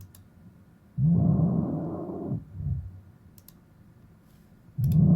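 A man snoring loudly over a voice-chat microphone: two long, low snores, the first about a second in, the second starting near the end.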